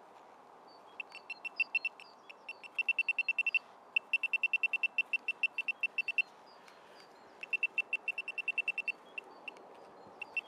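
Handheld metal-detecting pinpointer probe beeping in the dug hole: short high beeps about ten a second, in several runs of one to two seconds with short gaps. The beeping signals metal close to the probe's tip, with the target still in the soil.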